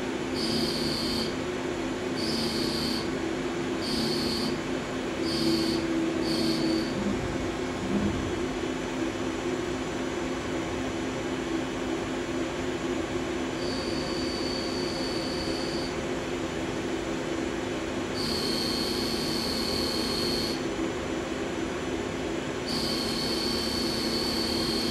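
Milling cutter in a CNC lathe's live-tool holder cutting a hardened 60 HRC steel pin, over the machine's steady hum. A high-pitched squeal comes and goes with the cutter's passes: short bursts about once a second for the first several seconds, then longer stretches of two to three seconds.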